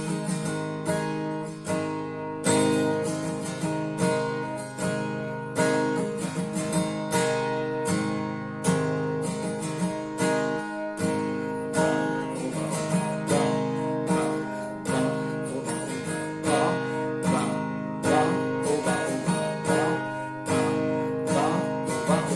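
Acoustic guitar strummed in a ballad rhythm, with regular accented down-up strokes and the chords changing every few seconds.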